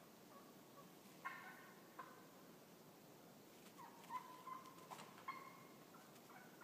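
Wild turkeys on the roost calling faintly: a couple of short calls about one and two seconds in, then a run of calls from about four seconds in, one of them drawn out.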